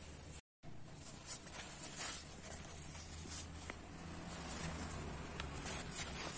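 Faint rustling and light handling clicks over a low steady hum, with a brief cut to silence about half a second in.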